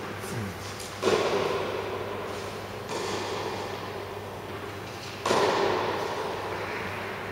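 Tennis racket strikes on a ball during a rally: three sharp hits about two seconds apart, the first and third loudest, each ringing on in the echo of an indoor hall.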